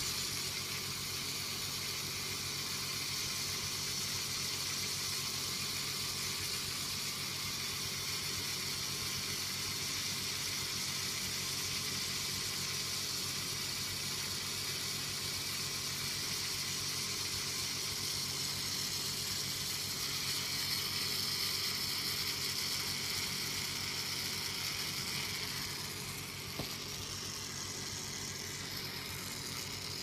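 Boshijie mini ceiling fan motor running, turning a Lego gearbox and model fan: a steady whir with a strong hiss, dropping a little in level about 26 seconds in.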